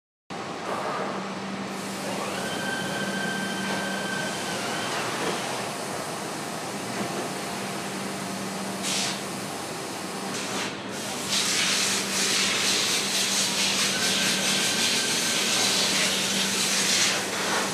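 Foundry casting machinery running with a steady hum and hiss, the hiss growing louder about eleven seconds in, with faint high whining tones over it.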